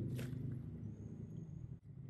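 Water at a rolling boil in a frying pan, bubbling with a dense low rumble, with a brief splash near the start as a bunch of bok choy is lowered into it.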